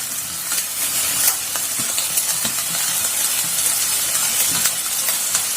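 Crushed onion, ginger, garlic, green chilli and curry leaves sizzling in hot coconut oil in a pan, with scattered light clicks and scrapes of a spoon stirring.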